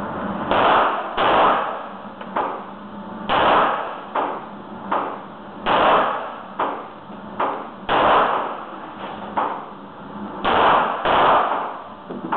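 Glock 19 9 mm pistol fired in slow single shots, seven loud reports spaced about one to two and a half seconds apart, each ringing off the walls of an indoor range. Fainter sharp cracks fall between the loud shots.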